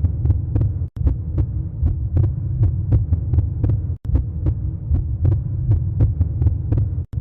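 Looping sound effect: a low pulsing rumble with sharp ticks about four times a second. The loop restarts with a brief cut about every three seconds.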